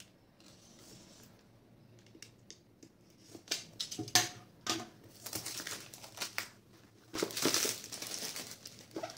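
Plastic shrink-wrap film on a smartphone box being slit with a box cutter and torn off, crinkling. Sharp clicks and short rustles start about three seconds in, and two longer stretches of crinkling follow near the end.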